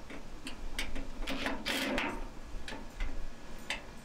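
Irregular small metallic clicks from a screwdriver working screws out of a microwave oven's sheet-metal casing, with a longer scrape around one and a half to two seconds in.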